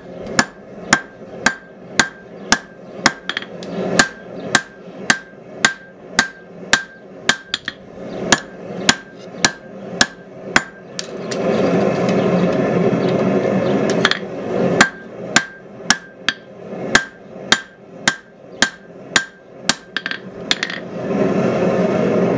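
Hand hammer striking red-hot knife steel on an anvil in a steady rhythm of about two to three blows a second, each blow leaving a short metallic ring. The blows pause for a few seconds about halfway through and stop shortly before the end, and a steady rushing noise runs underneath.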